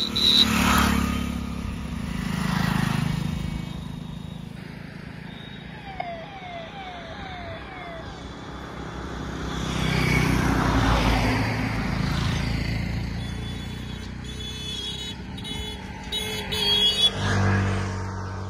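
Motor vehicles passing on a road, their engine noise swelling and fading several times. About six seconds in there is a quick run of four short falling chirps.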